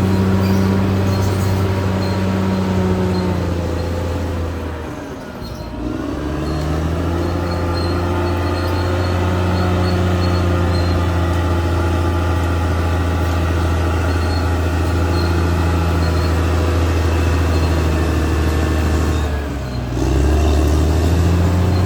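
Caterpillar D6R XL bulldozer's diesel engine running under load. The revs drop briefly about five seconds in and again near the end, then pick back up.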